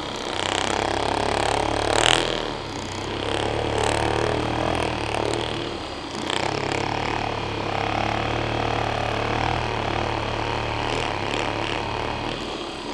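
Handheld electric massager buzzing steadily as it is worked over a sore muscle, starting about half a second in, with a sharp click about two seconds in.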